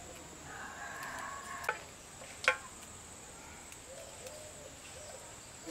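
Insects trilling steadily in a high, even band, with two sharp clicks about one and a half and two and a half seconds in, the second the loudest.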